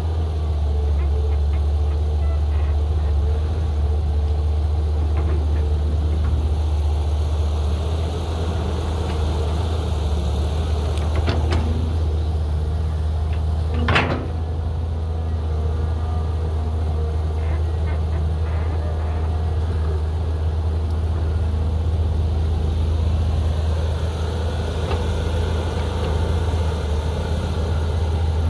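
Caterpillar 320GC excavator's diesel engine running steadily under load while it digs soil and loads a dump truck, with a sharp knock about halfway through and a few fainter clicks.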